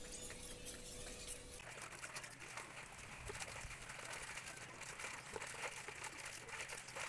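Clothes being hand-washed in a steel basin of soapy water: wet fabric scrubbed and squeezed, with small irregular splashes and squelches.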